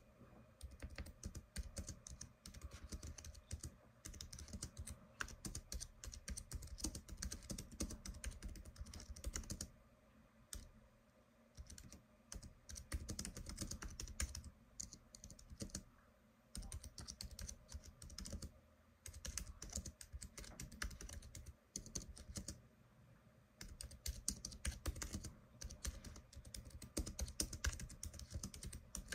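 Typing on a computer keyboard: quick runs of keystrokes that stop for a second or two several times.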